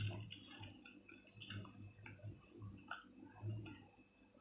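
Faint light clicks and rustles of fine fried sev being sprinkled by hand onto a plate, over a low steady hum.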